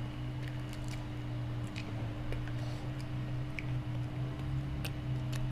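Eating sounds: soft wet chewing and a few scattered light clicks of utensils against dishes, over a steady low hum.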